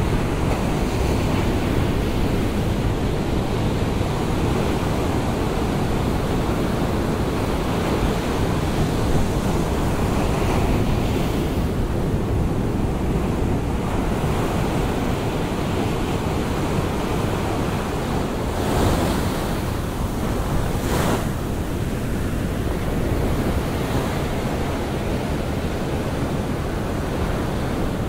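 Heavy ocean surf breaking and washing up onto a sandy beach in rough seas: a dense, continuous rush of whitewater, with two brief louder crashes about two-thirds of the way through.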